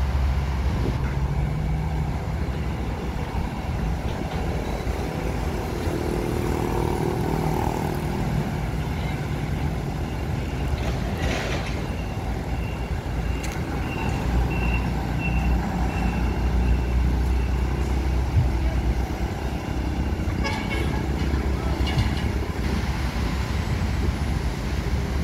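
Diesel engines of heavy construction machinery running steadily, with a hydraulic excavator working in the foreground and road traffic passing. Near the middle comes a string of short high beeps, about two a second, and there are a couple of brief bursts of noise.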